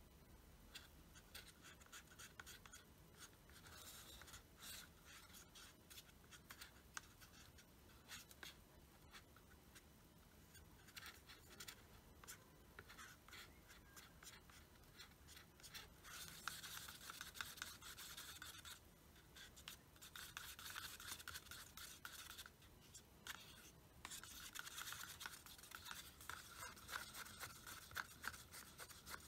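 Faint scraping and rubbing of a thin wooden stick stirring oil in a paper cup, the stick working against the cup's wall and bottom. It comes in spells of a few seconds with short pauses between.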